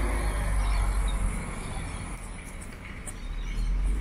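Street ambience: a steady low rumble of road traffic, dipping a little past the middle.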